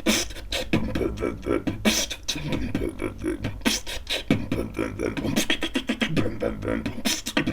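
Human beatboxing: a fast, continuous run of mouth-made drum hits with low buzzing bass sounds in between.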